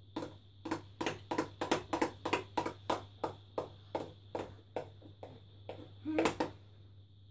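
Spoon clinking and scraping against a glass mixing bowl as a thick white slime mixture is stirred, about four strokes a second, stopping about five seconds in.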